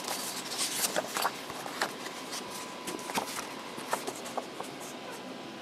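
Handling noise from a paper instruction manual being picked up and opened: irregular light rustles and taps of paper, thinning out toward the end.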